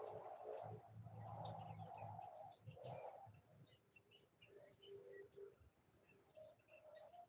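Faint forest ambience: a steady, high-pitched insect trill throughout, with scattered short bird chirps. Some lower calls come in the first three seconds.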